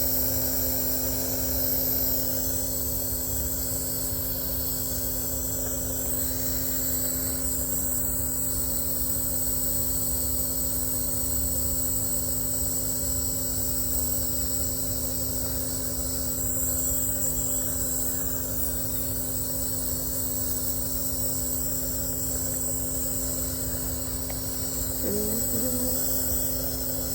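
Nebulizer air compressor running with a steady, even mechanical hum.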